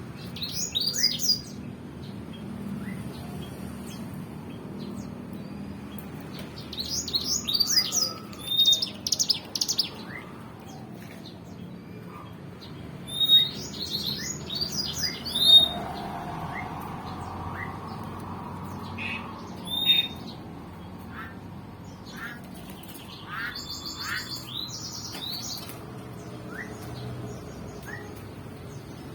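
Caged songbirds chirping and twittering in several short bursts of quick, high notes, over a steady low background noise.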